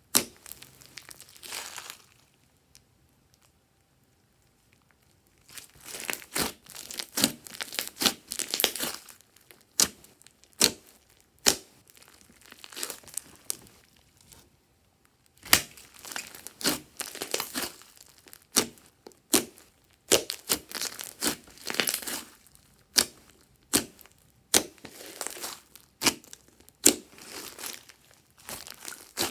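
Glossy slime being pressed and stretched by hand, crackling with sharp popping clicks of trapped air. The clicks come in runs, broken by two short pauses: one a few seconds in and one about halfway.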